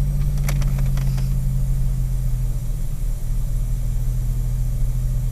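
Car engine idling steadily, heard from inside the cabin as a low, even hum, with a few light clicks in the first second or so.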